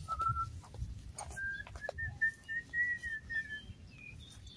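High whistled notes: a short steady note, then about a second in a quick run of about a dozen short notes, some five a second, that climb slightly and sink back before stopping. Low rumbling runs underneath.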